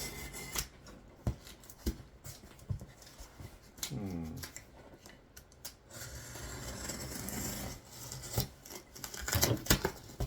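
A cardboard shipping box being cut open with a box cutter: the blade scrapes along packing tape and cardboard, with scattered clicks and knocks as the flaps are handled, and rustling near the end as the box is opened.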